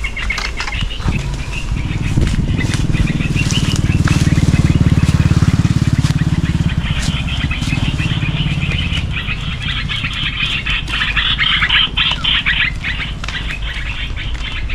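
A motorcycle engine passes close by, loudest about four to six seconds in, while small birds chirp in the trees, thickest in the second half.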